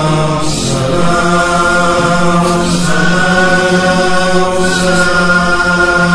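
Wordless chorus of voices holding long drawn-out notes, the vocal drone that backs a soz elegy between the reciter's lines, with a soft hiss swelling about every two seconds.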